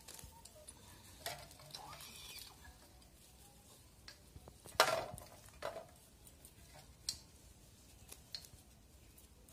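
Scattered light clicks and knocks of a plucked chicken being handled over a steel plate, with one sharper clatter with a short ring about five seconds in.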